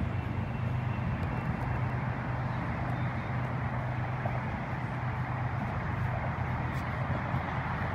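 Steady outdoor rumble with a constant low hum underneath, unchanging throughout.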